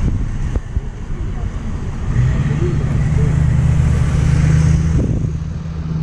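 A road vehicle's engine runs with a steady low hum that sets in about two seconds in, over a background of traffic noise.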